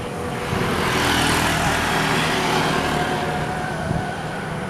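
A motor vehicle passing, its engine hum and rushing noise swelling about half a second in and fading out after about three seconds.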